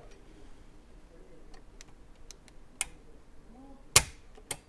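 A few faint small clicks, then a sharp metallic snap about four seconds in and a lighter click just after: a Tanfoglio pistol's hammer falling as the double-action trigger is pulled against a trigger-pull gauge, with the lighter Eemann Tech competition hammer spring fitted and the pull reading about 7 pounds.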